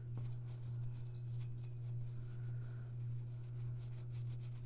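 Cloth shop towel rubbing over a textured painted plaque, faint dry scrubbing strokes as brown paint is wiped back off the raised castings. A steady low hum runs underneath.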